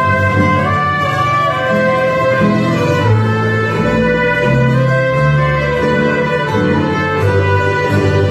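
A tamburica band playing live: tamburicas picking and strumming the tune over accordion and a plucked double bass, with the bass notes changing about every half second to second.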